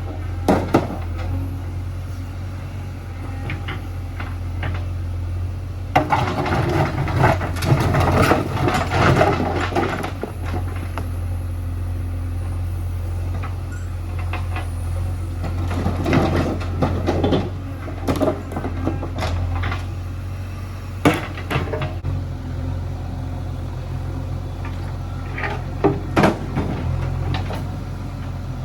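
A heavy machine's diesel engine running steadily, with bursts of clattering and knocks from rocks being shifted. The clatter is heaviest about six to ten seconds in, with shorter bursts later on.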